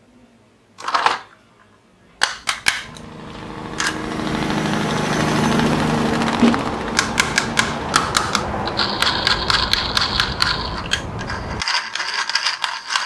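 Plastic toy tanker truck being picked up and handled: a brief plastic clatter, then a steady whirr and a long run of rapid clicks as the truck and its wheels are turned and rolled by hand.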